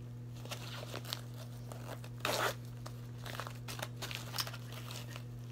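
A padded zippered cosmetic bag being handled and unzipped: scattered small clicks and rustles, with one louder short rasp about two seconds in. A steady low electrical hum runs underneath.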